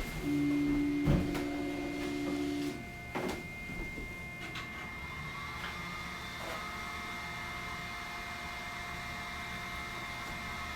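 Flashforge Adventurer 3 Lite 3D printer's motor whining on one steady pitch for about two and a half seconds after the print has finished, with a couple of sharp clicks. A quieter steady hum follows.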